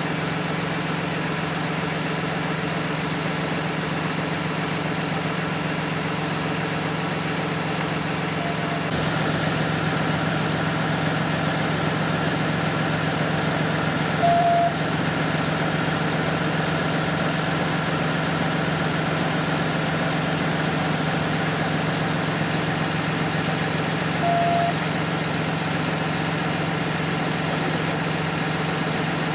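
Large vehicle engine idling with a steady deep hum that grows slightly louder about nine seconds in. A short high beep sounds three times over it, loudest near the middle.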